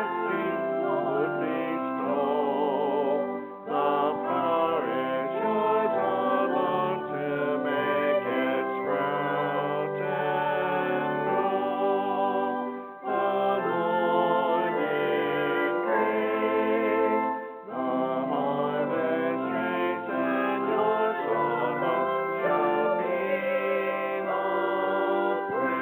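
Church music after the dismissal: singing voices with instruments, a closing hymn, with brief pauses between phrases.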